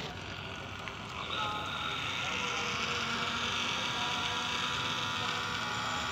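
A sharp click, then about a second later a small electric water pump on a model tractor starts and runs steadily, pumping water through its pipe into a steel cup.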